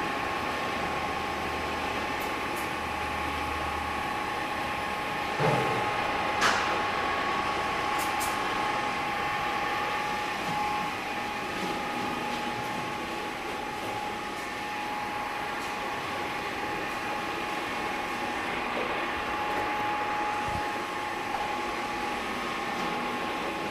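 A stainless steel dual paddle mixer running, its two 3 hp electric drives giving a steady mechanical hum with a constant whine. There are a couple of short knocks about five and six seconds in.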